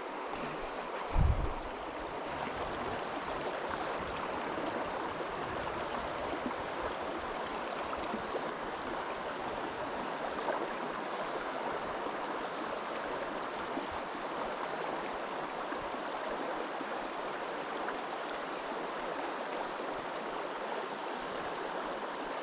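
Steady running water of a small mountain creek, an even rushing that doesn't change. About a second in there is one brief low thump.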